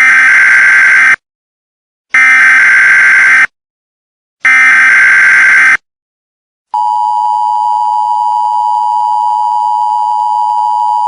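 Emergency Alert System header: three bursts of screeching SAME digital data tones, each a little over a second long and about two seconds apart. After a short gap the steady two-tone EAS attention signal starts and holds.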